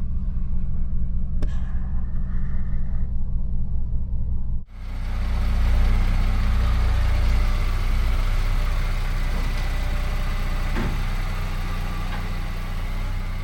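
A 2020 Porsche Macan S's twin-turbo V6 idling steadily. The sound breaks off briefly about four and a half seconds in and comes back with more hiss over the same low hum.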